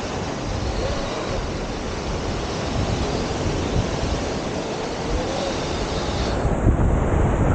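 Steady rush of wind buffeting the microphone of a camera on a moving dirt bike, mixed with surf washing onto the beach.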